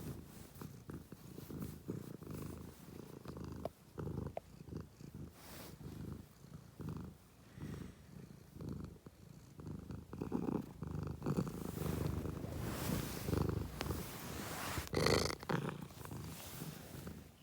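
Domestic cat purring close to the microphone, a steady rhythmic low pulsing, with a brief louder rustle about fifteen seconds in.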